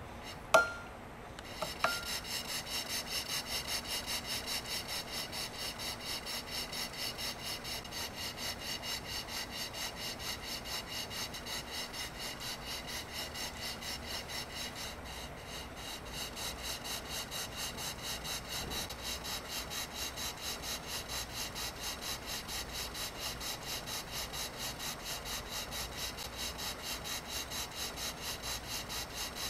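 Model cross-compound two-cylinder steam engine running steadily, with a rapid, even rhythm of hissing beats. Two sharp metallic clicks come in the first two seconds, just before the rhythm settles in.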